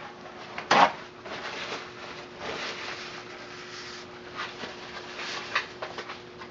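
Rubber-gloved hands wiping with a paper towel and handling soap-making cups, giving a rustling, rubbing sound with a few light clicks. A sharp knock comes about a second in, and a faint steady hum runs underneath.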